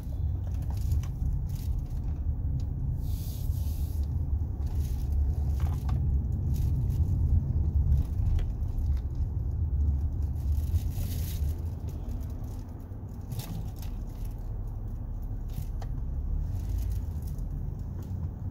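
Low road and engine rumble of a moving car, heard from inside the cabin, with scattered light clicks and rattles at irregular moments.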